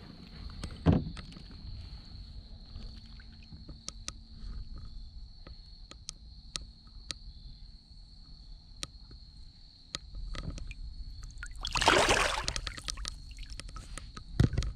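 Largemouth bass being released by hand over the side of a boat: light drips and trickles of water, then near the end a short loud splash as the fish kicks free. A steady high-pitched whine runs underneath.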